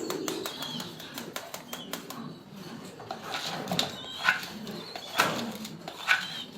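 Pigeon squabs being hand-fed, flapping their wings in short bursts with thin high squeaks, the begging of hungry chicks. A rapid patter of small clicks comes early on.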